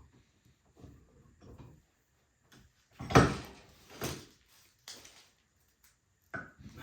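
Wooden axe handle knocking as a steel axe head is tapped down onto it: a few faint knocks, then three clear ones about a second apart, the first the loudest. This is a test fit that shows where the handle still binds in the eye and needs more wood taken off.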